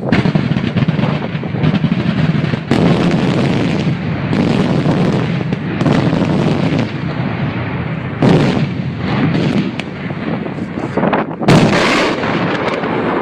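Daytime fireworks going off in a dense, continuous barrage of bangs and booms that rumble into one another. The barrage surges louder about three, eight and eleven and a half seconds in.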